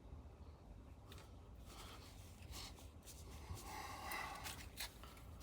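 Faint handling noise: soft rubbing and scraping with a few light clicks as an adhesive rubber finger rest is peeled up and repositioned on a Glock pistol frame, loudest about four seconds in.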